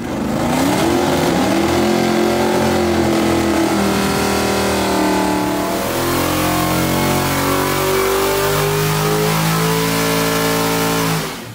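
Small-block Mopar V8 race engine running hard at high revs, its pitch climbing and shifting in several steps, then fading out at the end.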